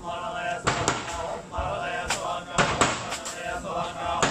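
Buddhist monks chanting a sutra in unison, low male voices on a held drone, broken by several sharp knocks.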